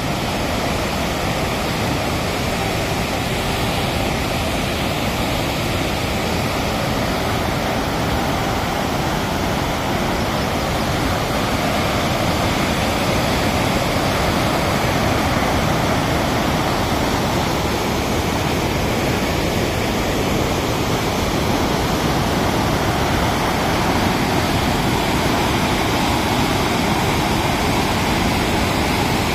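Heavy flow of water pouring through the open spillway gates of a masonry dam and churning white in the basin below, a steady, unbroken rushing: the dam's reservoir is full and spilling.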